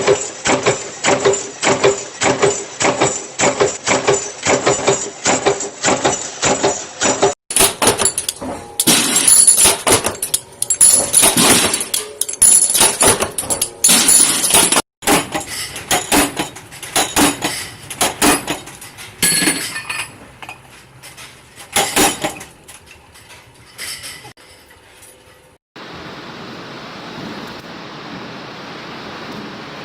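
Rapid, evenly spaced strikes with a ringing tone, then irregular clattering and clinking strikes of hand work on hard material. Near the end they give way to a steady rushing noise.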